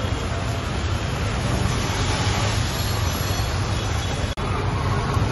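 Rain and street traffic on a wet road: a steady dense hiss of rain and tyres on wet tarmac with a low engine rumble underneath. The sound briefly drops out about four seconds in.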